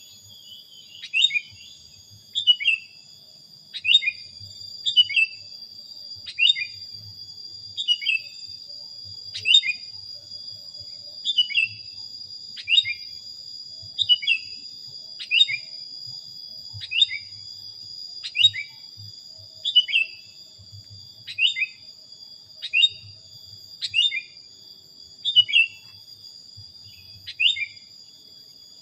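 Sooty-headed bulbul (kutilang) giving a short, falling call over and over, about one every second and a half, with a steady high-pitched whine underneath.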